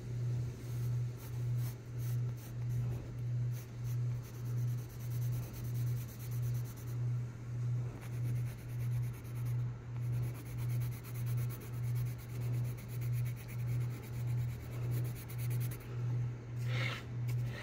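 Pencil sketching on paper, with faint scratching strokes. Under it runs a low hum that pulses about three times every two seconds, and a brief scrape comes near the end.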